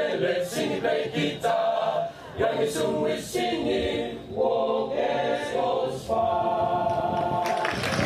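Boys' choir singing in several short phrases, ending on a long held chord. Applause breaks out as the chord ends.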